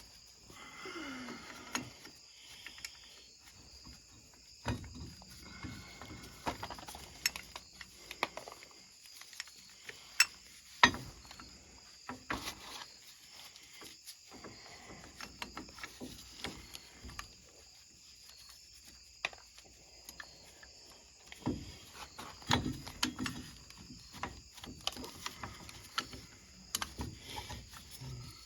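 Scattered metallic clicks, taps and light knocks of hand tools and brake parts being handled while new pads are fitted into a side-by-side's brake caliper, with two sharper knocks about ten seconds in.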